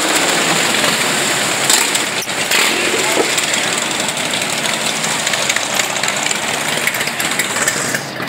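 Several cruiser motorcycles riding slowly past at low revs, their engines running together in a loud, steady din.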